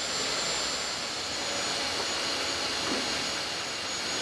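Steady rushing of water-coolant mix being poured from a bucket into a Leopard tank's cooling system.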